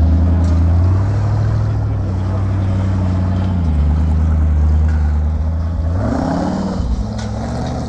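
Off-road buggy's engine running under load as it climbs a steep grass slope, its pitch dipping about halfway through and rising and falling again near the end.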